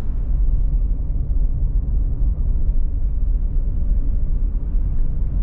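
Steady low rumble of a vehicle driving on a paved road, heard from inside the cabin: engine and tyre noise with no change in pace.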